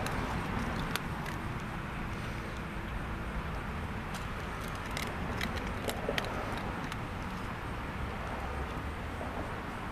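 Steady low outdoor background rumble, with a few faint clicks scattered through it.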